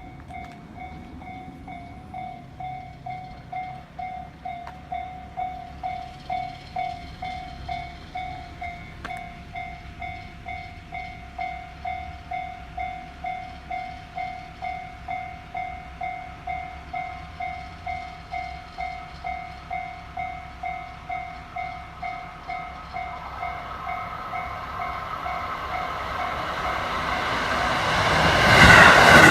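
Japanese level-crossing alarm bell dinging in a steady, even rhythm of two-tone strikes. About three-quarters of the way through, the noise of an approaching JR 205-series electric train builds and grows loud as it reaches the crossing near the end.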